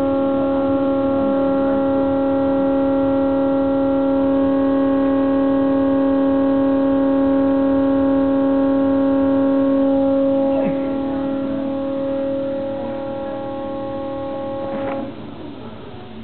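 LG refrigerator giving off a loud, steady howl of several tones at once, like an air raid siren; the owner takes it for a design fault. Some of the tones drop out partway through, and the whole sound cuts off about fifteen seconds in.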